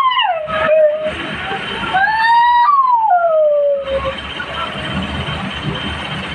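Dog howling: two long howls, each rising briefly and then sliding down in pitch, the second ending about four seconds in. After that only a steady background noise remains.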